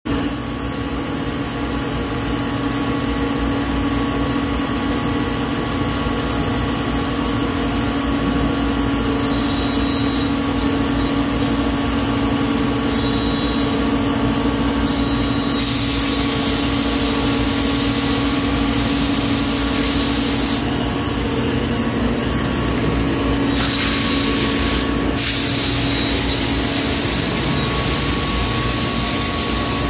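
Weeke Vantech 480 CNC router's machinery running with a steady hum and a constant low tone. A louder hiss joins in for about five seconds around the middle and again briefly a few seconds later.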